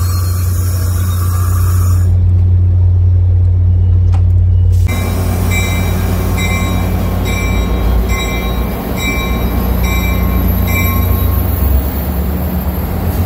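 Diesel passenger train running at the platform with a loud, steady deep hum. From about five seconds in, a bell rings in an even rhythm of about three strikes every two seconds, and it stops near eleven seconds.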